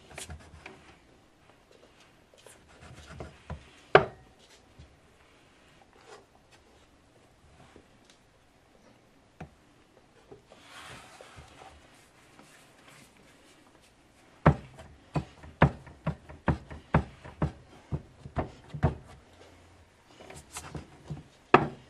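Knocks and taps on a wooden cutting board as biscuit dough is pressed flat by hand and cut with an upturned drinking glass, with a short rubbing of dough and flour partway through. Near the end comes a quick run of about a dozen knocks, two or three a second.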